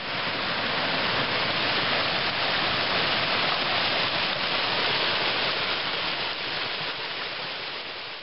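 A mountain creek rushing and splashing over rocks in a small cascade: a steady, full rush of water that swells in the first second and eases a little near the end.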